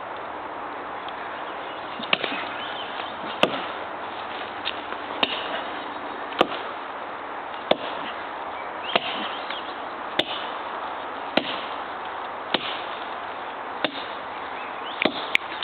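Chopping into a tree trunk, one sharp blow about every second and a quarter, with two quick blows near the end.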